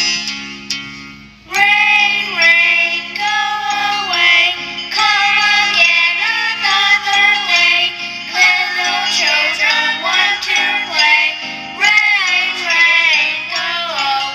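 Children's song playing: a sung melody over a light backing track with jingly accompaniment. The singing begins about a second and a half in, after a few plucked notes and a brief dip.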